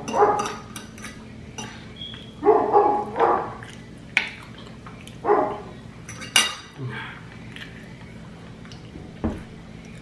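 A dog barks several times, with cutlery clinking against a plate in between and a dull thump near the end.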